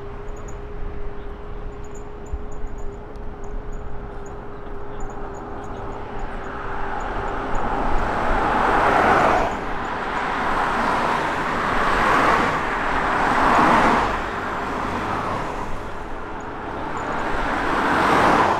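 Cars passing one after another on a city street, tyre and engine noise swelling and fading about four times over the second half. The last pass, a minivan close by, is the loudest.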